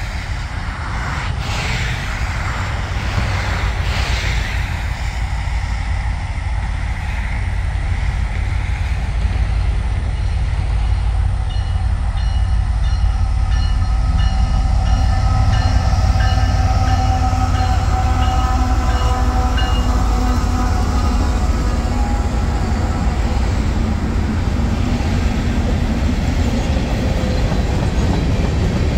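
Freight train of tank cars rolling past at close range: a steady heavy rumble of wheels on rail, with a few sharp clicks in the first few seconds. A held high tone sounds for several seconds in the middle.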